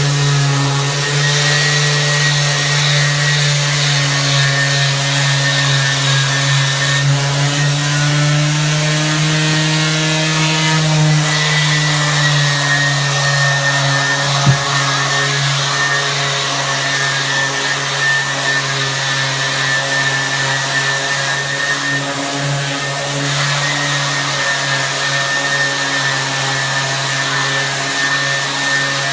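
Palm sander with 100-grit paper running on a hardwood floor, together with its dust-extraction vacuum, sanding out swirl marks left by the edger: a steady motor hum whose pitch rises slightly and falls back around ten seconds in. A single sharp knock about halfway through.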